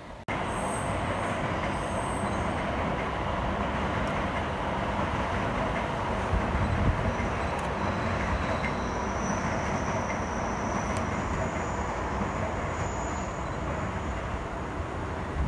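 JR ED75 electric locomotive, coupled to a second red locomotive, running along the track: a steady rumble of wheels and running gear that begins abruptly about a quarter second in.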